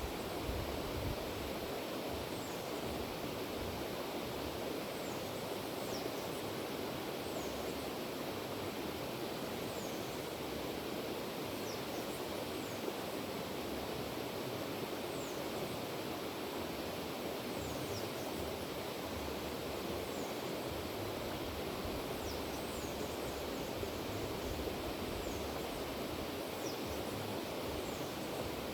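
River water rushing steadily over stones, an even noise that does not change. Short, high, falling chirps come every second or two over it.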